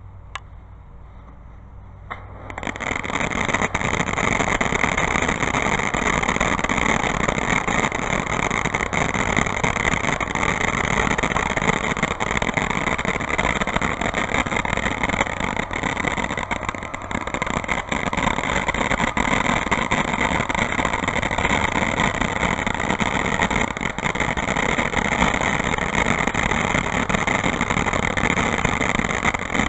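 Firework fountain (TNT Pyrofire) catching about two and a half seconds in, then burning with a steady hissing rush dense with fine crackles.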